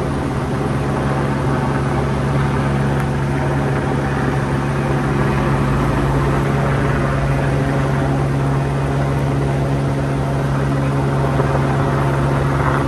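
Steady, unchanging drone of helicopter rotors hovering overhead, with a car passing close by about halfway through and a motorcycle approaching near the end.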